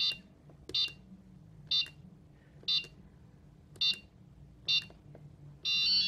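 Electronic beeper of a fake-bomb prop's keypad giving a short, high-pitched beep for each key pressed, six beeps about a second apart, as a service code is typed in to change the timer. A longer beep sounds near the end.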